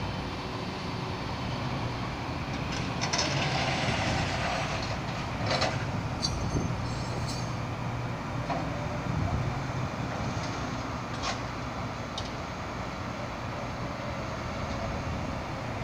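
A vehicle engine running steadily amid street noise, with a louder rushing stretch about three to five seconds in and a few sharp clicks scattered through.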